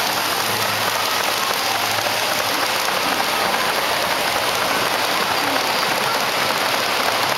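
S gauge model freight cars rolling past close by: a steady clatter of wheels on the track.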